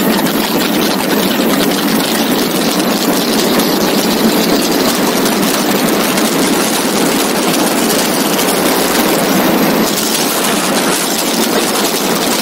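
Magni M16 gyroplane's engine running steadily at high power with air rushing past the open cockpit, through the takeoff roll and into the climb.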